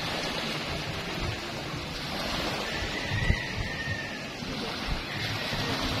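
Small sea waves breaking and washing up a flat sandy shore in a steady hiss of surf, with gusty low rumbles of wind on the microphone.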